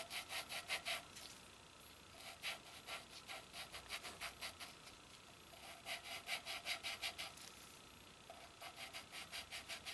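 A new exhaust valve being lapped into its seat in a Subaru cylinder head with fine lapping paste, twisted back and forth on a rubber-tipped dowel. It makes a faint gritty rasping in quick strokes, about five a second, coming in four spells with short pauses between.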